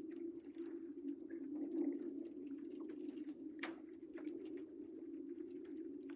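Spring lake ice shedding its cover: a steady low hum with many small clicks and crackles over it, and one sharper crack a little past halfway.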